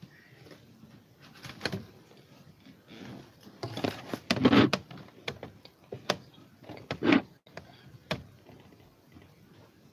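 Irregular knocks, clicks and rustling from something being handled close to the microphone. The loudest bursts come about four and a half seconds in and again about seven seconds in.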